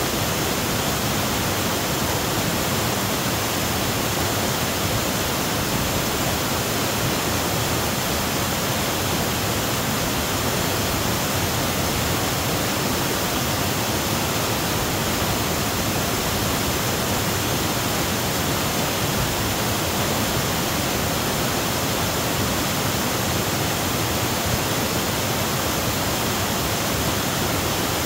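Waterfall cascading over boulders: a steady, unbroken rush of white water.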